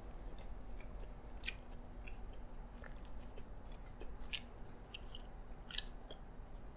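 A person chewing a mouthful of yee sang, a raw salmon salad with shredded vegetables, picked up close by a clip-on microphone, with scattered short clicks and crackles.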